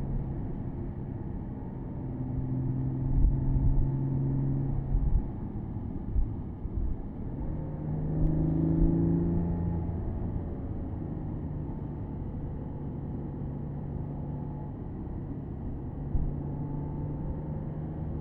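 Porsche Boxster S 987.2's flat-six engine running on the road, heard from the open-top cabin over steady road noise; the engine note rises and falls with the throttle, pulling harder about three seconds in and again around the middle, then settling to a steady cruise.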